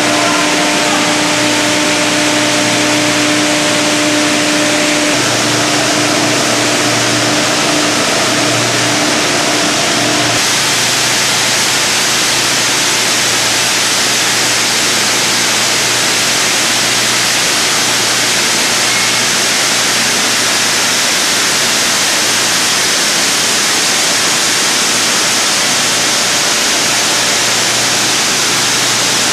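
GC-100-S-DF plastic recycling pelletizing line running: a loud, steady mechanical noise. For about the first third a steady motor hum sits over it, then breaks off abruptly, leaving only the even noise.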